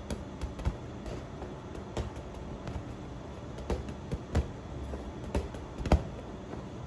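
Hollow plastic toy football bouncing on a tiled floor and being patted by hand: scattered, irregular taps and knocks, the loudest about six seconds in.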